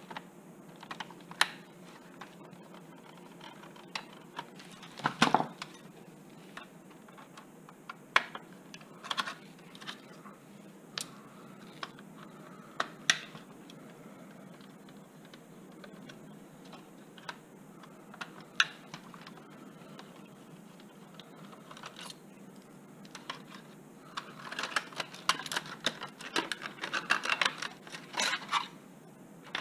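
Screwdriver work and plastic parts clicking and knocking as an LCD projector is taken apart: scattered sharp clicks, one louder knock about five seconds in, and a quick run of rattling clicks near the end.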